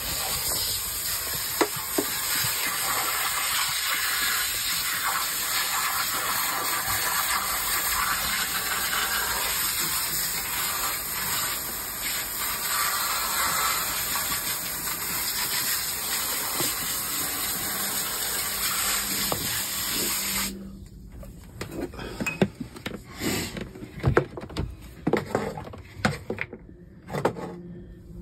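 Garden hose with a spray nozzle jetting water onto the floors of a boat's bilge as it is rinsed clean: a steady spraying hiss with splashing. The spray cuts off suddenly about two-thirds of the way through, leaving scattered knocks and clatter.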